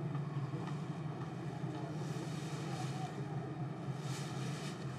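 Steady low rumble with a faint hiss above it, slightly swelling in the higher hiss about two and four seconds in.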